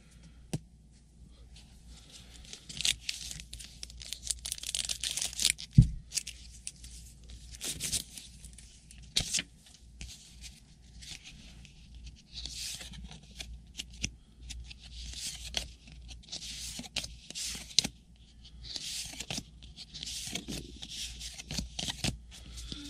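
Collegiate Collection trading cards being handled: a long run of short papery rustles and scrapes, each under a second, as cards are slid off a stack one after another, with scattered light clicks between.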